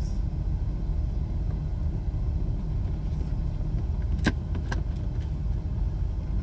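Steady low rumble of a car heard from inside the cabin, with two sharp clicks a little past four seconds in from handling a cardboard shoe box.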